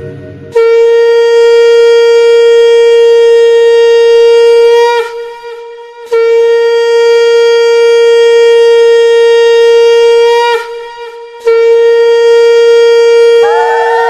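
Conch shell (shankha) blown in three long, steady blasts, each about four and a half seconds, with short breaks for breath between them. Near the end a second tone with a falling pitch joins in. The conch is sounded as the ritual welcome of the goddess at a Lakshmi puja.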